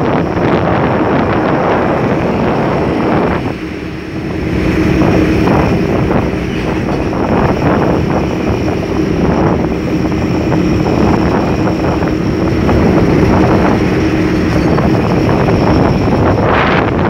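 Wind rushing over the microphone while riding along a road, with a vehicle engine humming steadily underneath. The wind noise eases briefly about three and a half seconds in.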